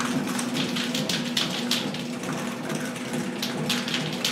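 Sectional garage door rolling up, a dense clattering rattle of its rollers and panels in the steel tracks over a steady low hum.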